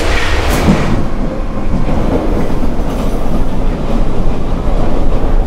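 Metro train running: a loud, steady rumble of the carriage on the track, with a short sharp high sound about half a second in.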